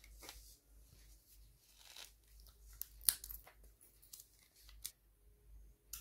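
Painting materials handled on paper: several short scratchy rustles and scrapes, the loudest about three seconds in, and a sharp click near the end.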